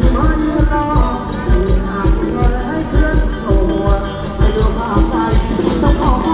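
Live Thai ramwong band music with a singer's voice over a steady, evenly repeating drum beat.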